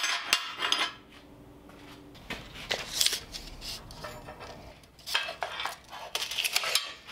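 Pieces of steel bar stock clinking and scraping against a slotted metal table top as they are handled and laid out, in several separate clusters of clinks with short quiet gaps between.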